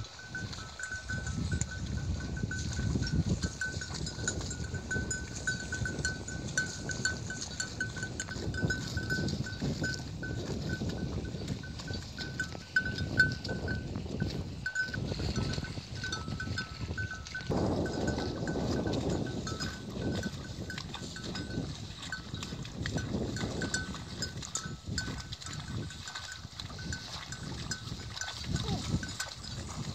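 Water buffalo grazing close by, cropping grass, in an uneven rustling noise. A thin, high, rapidly pulsing tone runs alongside and weakens about seventeen seconds in.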